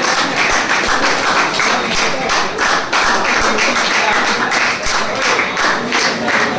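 A group clapping hands together in a quick, steady rhythm, several claps a second.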